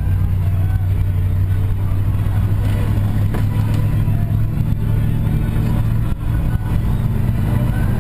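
Steady engine and road drone heard inside the cabin of a four-wheel-drive truck while it is being driven, with a brief dip about six seconds in.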